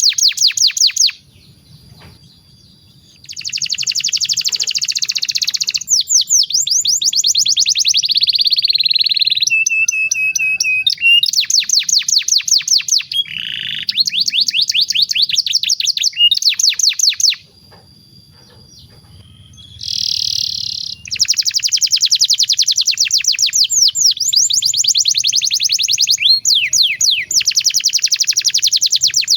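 Domestic canary singing a long song of rapid trills, each phrase a fast run of repeated high notes, broken by short pauses about a second in and again past the middle.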